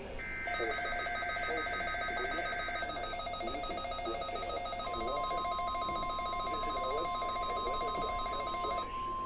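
NOAA Weather Radio weekly test's Emergency Alert System signal: warbling data-burst tones of the SAME header, layered from more than one receiver. About five seconds in, the steady weather-radio alert tone starts and holds.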